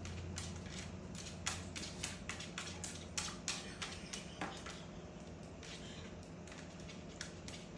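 Irregular sharp clicks and light taps, a few a second, over a steady low hum.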